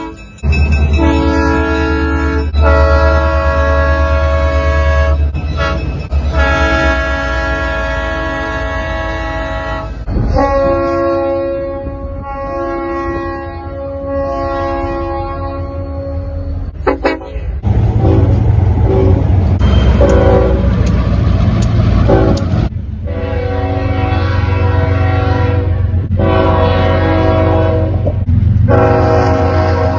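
Train air horn sounding a series of long chord blasts, each a few seconds long with short breaks between, over a steady low rumble. For a few seconds past the middle the horn drops back and the rumble carries on alone, then the blasts resume.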